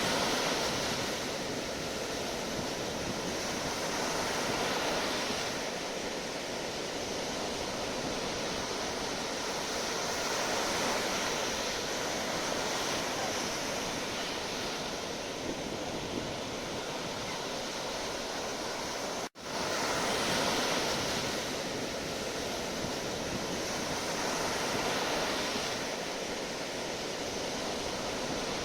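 Sea waves washing in a steady rush, swelling gently about every five seconds. The sound drops out for an instant about two-thirds of the way through, then comes straight back.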